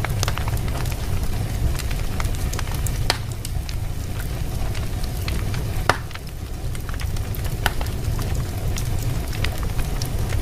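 Wood fire burning in a fireplace: irregular crackles and sharp pops over a steady low rumble, with a louder pop about six seconds in.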